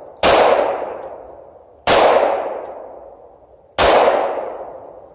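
Three 9mm Glock 19 pistol shots, fired about two seconds apart. Each one trails off in a long echo.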